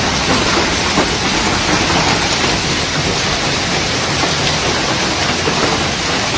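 Hailstones falling hard onto pavement, plants and hail-covered ground: a loud, steady hiss packed with fine ticks of pellets striking.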